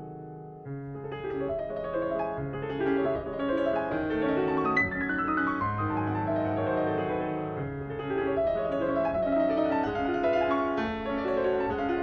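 Solo grand piano playing a continuous flowing piece, soft at first and then fuller and louder about a second in.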